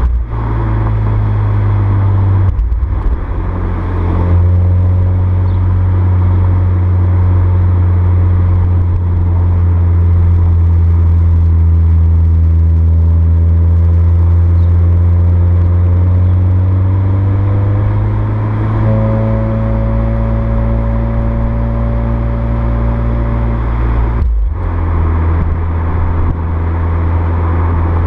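VW Golf VII R's turbocharged 2.0 TSI four-cylinder engine and exhaust running under steady load at near-constant revs, its pitch drifting slowly and rising a little about two thirds of the way through. The sound drops out briefly twice, near the start and near the end.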